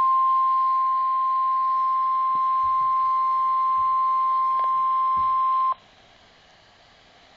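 NOAA Weather Radio's 1050 Hz warning alarm tone, one steady high pitch received over a radio, signalling that a weather warning is about to be read. It cuts off suddenly about six seconds in, leaving faint radio hiss.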